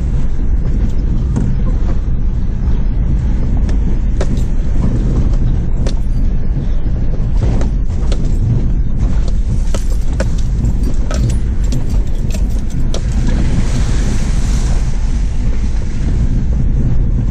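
Engine and road noise inside the cab of an older four-wheel drive crawling along a rough, muddy track in high-range four-wheel drive, with frequent knocks and rattles as it bumps over ruts. A brief hiss rises about two-thirds of the way through.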